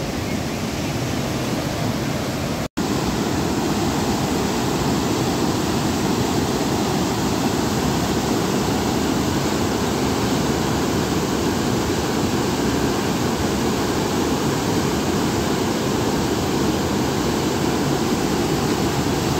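Monsoon-flooded river rushing through a rocky gorge: a loud, steady rush of churning whitewater, cut off for a split second about three seconds in.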